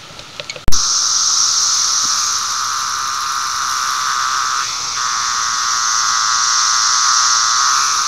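A 17-year periodical cicada held in the hand singing right by the microphone: a loud, steady buzz that starts suddenly just under a second in.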